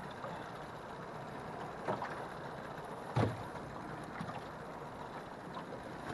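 Water slapping against the hull of a small aluminum jon boat rocking on choppy water, over steady wind and wave noise, with a few short knocks, the loudest about three seconds in.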